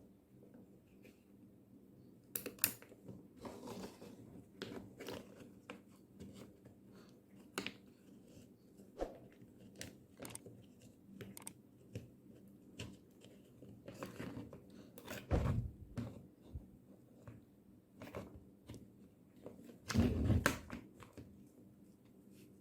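Scattered clicks, scrapes and knocks of small parts and hand tools being handled, with two heavier thumps about fifteen and twenty seconds in.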